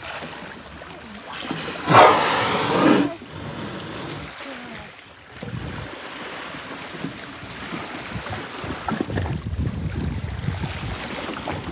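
A humpback whale exhaling through its blowhole at the surface: one loud, breathy blow about two seconds in, lasting about a second and a half, followed by water lapping and sloshing.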